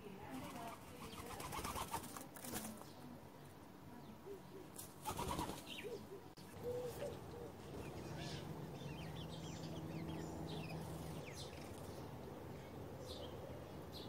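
Doves' wings flapping in two bursts, about two seconds in and again about five seconds in, with small birds chirping faintly through the second half.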